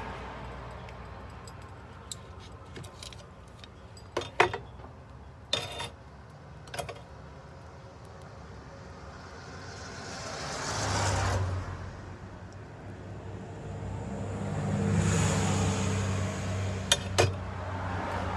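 Sharp metallic clinks and knocks as a freshly welded stainless steel coupon and tools are handled with pliers on a workbench, a few in the first half and two close together near the end. A low hum and two longer swells of rushing noise run in between.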